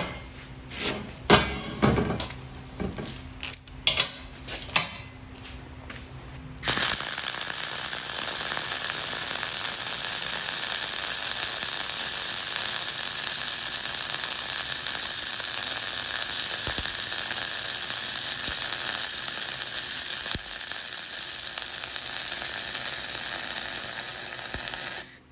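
A few irregular knocks and clatters of handling the steel, then about seven seconds in a wire-feed welding arc strikes and crackles steadily for roughly eighteen seconds before stopping.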